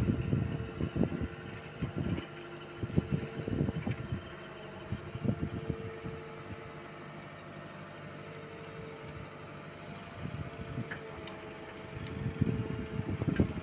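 Light-duty dump truck engine running steadily at low speed, with irregular low rumbles and thumps coming and going, heaviest in the first few seconds and again near the end.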